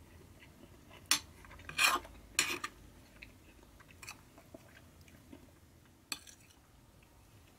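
Metal spoon scraping and clinking against a ceramic plate while scooping up fried rice: a cluster of sharp scrapes in the first three seconds, and one more about six seconds in.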